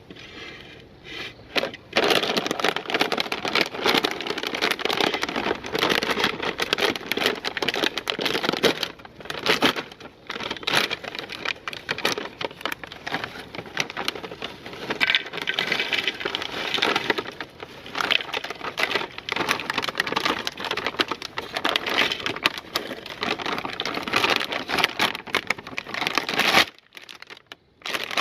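Meat grinder crushing and grinding a brittle item, a dense run of crackling and crunching. It stops abruptly near the end, then starts again.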